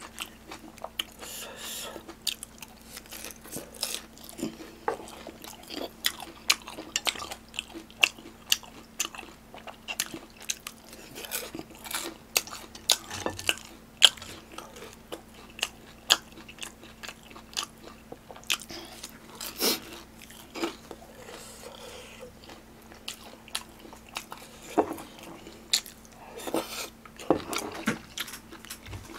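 Close-miked chewing with frequent sharp crunches: a person biting into and chewing crispy battered fried pork (tangsuyuk), over a faint steady hum.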